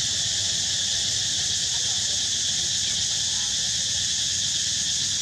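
A steady, high-pitched insect chorus drones without a break.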